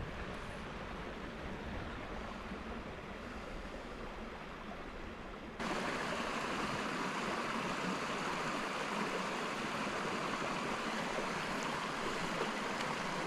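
Small mountain brook running over rocks, a steady rushing of water with a low rumble of wind on the microphone. About five and a half seconds in, it jumps abruptly to a louder, hissier rush of water.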